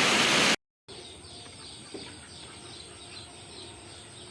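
Loud wind and rain noise of a storm, which cuts off abruptly less than a second in. After a brief silence come many faint, quick bird chirps.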